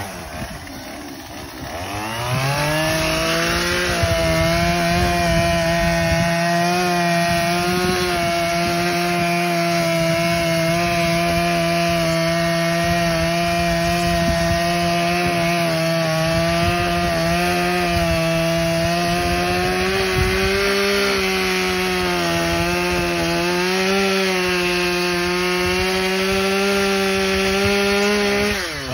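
Chainsaw revving up about two seconds in and running at a steady high pitch while cutting through wood, the pitch easing slightly up later on, then dropping back near the end.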